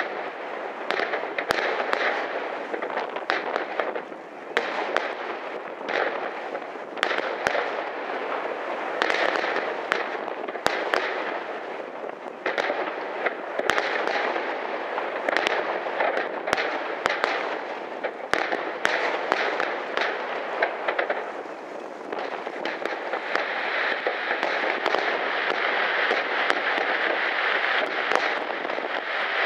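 Professional fireworks display: aerial shells bursting in rapid, near-continuous bangs and crackles over a constant rumble. The sound grows denser and steadier, with fewer separate bangs, over the last few seconds.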